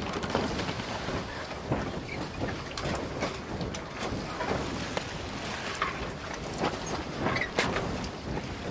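Steady rushing noise with many scattered clicks and knocks.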